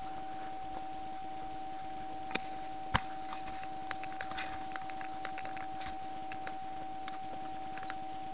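A steady high electronic whine from the head-mounted camera, over scattered faint clicks and crunches of a horse walking on packed snow, with two sharper knocks about two and a half and three seconds in.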